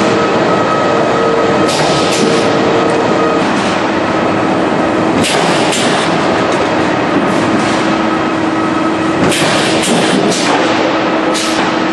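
Steel coil cut-to-length line with a hydraulic shear running: a steady motor hum and whine over a rattling roller noise, with short clusters of metallic clanks about every three to four seconds.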